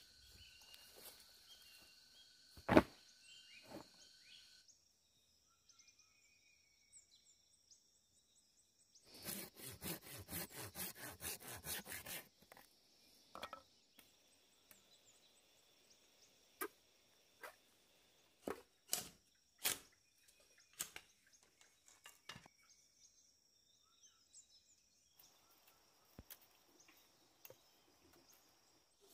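Machete work on bamboo: a sharp knock near the start, a quick run of strokes lasting about three seconds, then a series of single sharp knocks of the blade on the bamboo. Insects drone in the forest in the opening seconds.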